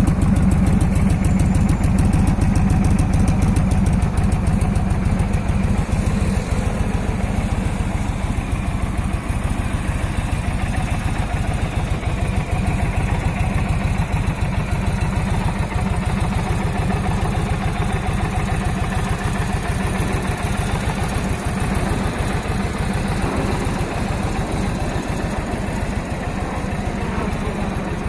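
An Indian Roadmaster's air-cooled Thunder Stroke 111 V-twin idling steadily, heard close to its exhaust tips. It is a little louder in the first few seconds.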